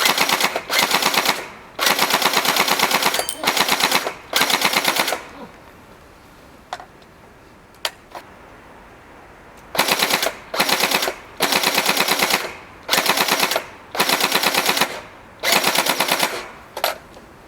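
Tokyo Marui AA-12 electric airsoft shotgun firing full-auto in short bursts, a rapid even rattle of shots with a pause of several seconds in the middle broken by two single clicks.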